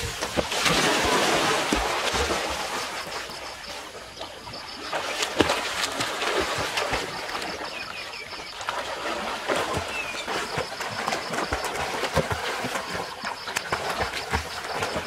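Pool water splashing and sloshing as swimmers plunge off a water slide, over the rush of water running down the slide. A sharp splash comes about five seconds in.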